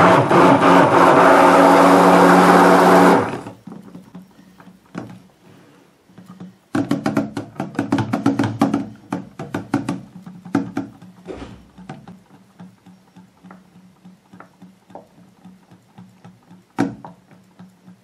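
Handheld stick blender running in liquid soap batter, then cutting off about three seconds in. A few seconds later comes a run of quick knocks and taps, which die down to scattered single taps.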